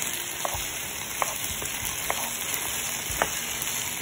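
Diced potatoes and sliced onions sizzling in hot oil in a pot, a steady frying hiss. A few short clicks are heard as the pieces are stirred.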